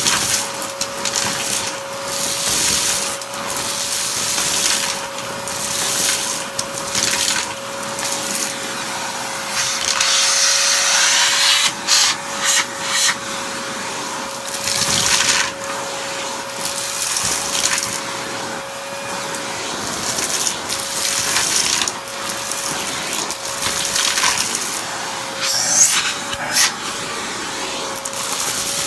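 Vacuum cleaner running with a steady motor whine while its hose tool sucks up debris and candy bits from a shag rug. The rush of air swells and fades with each stroke, and short crackles come as bits are pulled up the hose.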